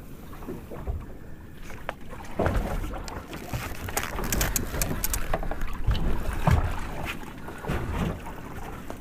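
Wind buffeting the microphone on a boat at sea, with a low rumble and irregular knocks and thumps from handling on the deck.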